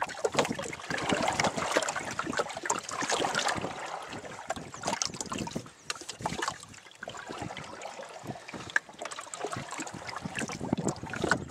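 Water splashing and lapping around a homemade canoe as it is paddled, in irregular strokes, with a little wind on the microphone.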